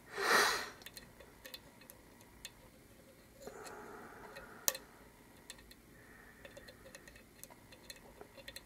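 Small irregular metallic clicks and ticks of a hook pick working the pin stack of a LOB Euro cylinder under tension, with one sharper click about four and a half seconds in. A short rush of noise comes just after the start.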